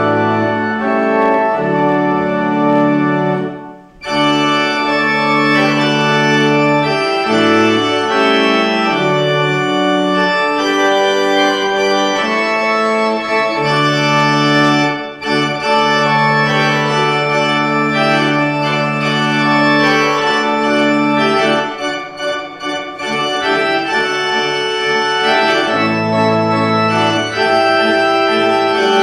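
Church organ playing held, sustained chords that change every second or two, with a brief break between phrases about four seconds in.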